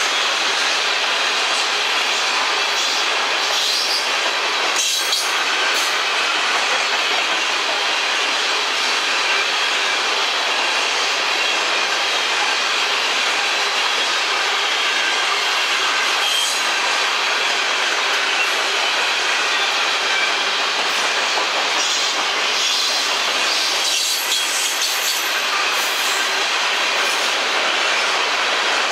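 Freight train of covered hopper cars rolling past: a steady rushing rattle of steel wheels on the rails, with a few sharper clicks now and then.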